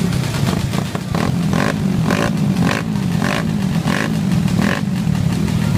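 Many minibikes' small engines idling and running together in a steady low drone, with some revving. A short higher-pitched sound repeats about twice a second through the middle.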